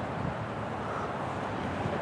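Steady rushing background noise with a low rumble underneath, outdoors; no train is heard yet.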